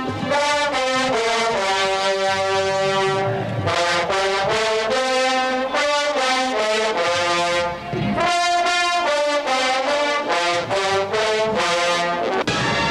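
Marching band's brass section playing a tune in many short, separate notes.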